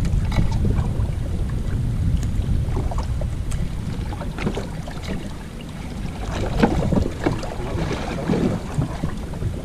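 Wind rumbling on the microphone on a boat at sea: a steady low rumble, with scattered small clicks and knocks.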